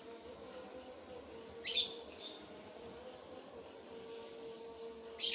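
Two short, high bird calls, one about two seconds in and a louder one at the end, over a faint steady hum.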